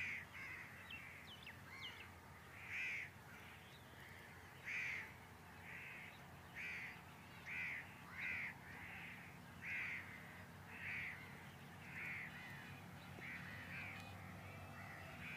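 Crows cawing over and over, about one harsh call a second, some in quick pairs, over a faint steady low hum.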